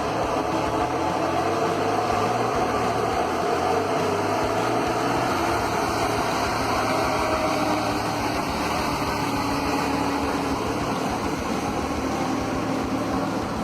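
Heavy truck engine running steadily, its pitch drifting slightly.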